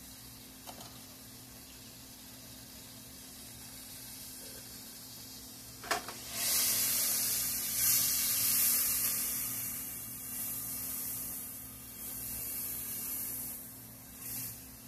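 Frying pan sizzling as food cooks in hot butter. The sizzle starts just after a click about six seconds in and swells several times.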